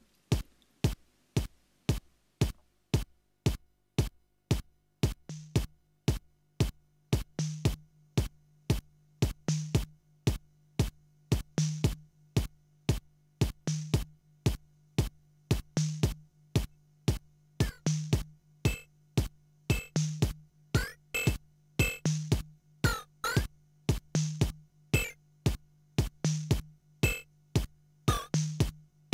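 DIY modular synth playing an electronic drum-machine-style pattern through a DIY stereo panning mixer. Sharp percussive clicks keep a steady beat. About five seconds in, a low bass note joins and swells every two seconds, and past the halfway point higher synth blips and pitch glides come in.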